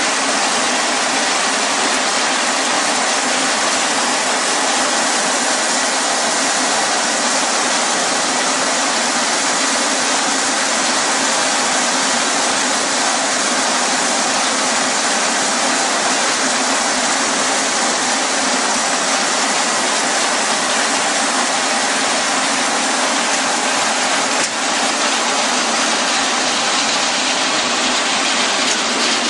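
Steady, loud machinery noise of a puffed corn snack processing line running, an even hiss with no distinct rhythm.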